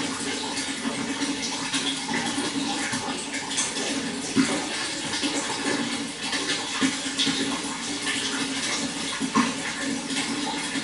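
Running water pouring and splashing steadily, with small louder splashes now and then.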